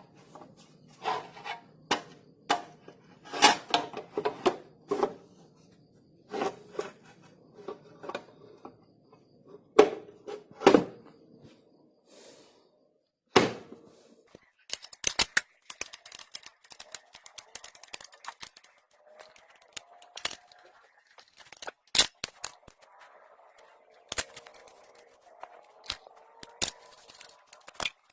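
Metal tools and parts knocking and clinking as the scooter's CVT cover is fitted back on, with scattered sharp knocks early and runs of fast light clicking in the second half.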